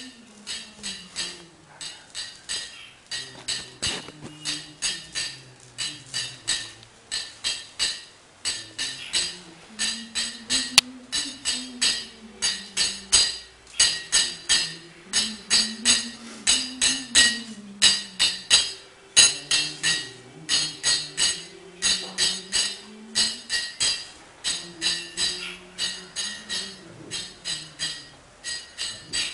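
Kirtan: small brass hand cymbals (kartals) struck in a steady rhythm, about three ringing clashes a second, with a male voice chanting a slow, low melody underneath.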